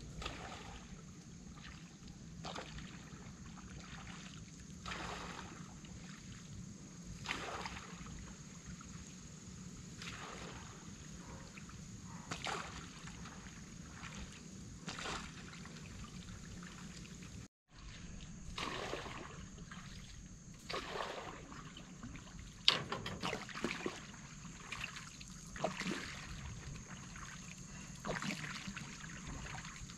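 Water splashing and trickling as a long pole is stroked through the lake to move a floating bamboo raft house. The strokes come about every two and a half seconds at first, then quicker and more uneven, with one sharper splash about two-thirds of the way in.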